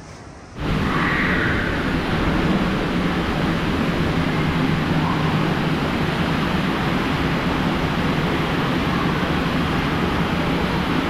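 Water rushing and rumbling through an enclosed tube waterslide as a rider slides down it, starting suddenly about half a second in and staying loud and steady.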